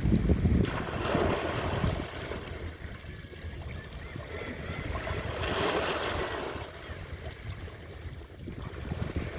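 Sea waves washing in, a steady rush that swells about a second in and again around the middle, with wind buffeting the microphone.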